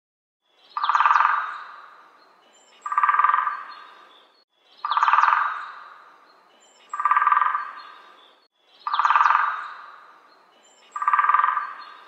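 Red-bellied woodpecker calling: six rolling calls, each about a second long and fading away, evenly spaced about two seconds apart.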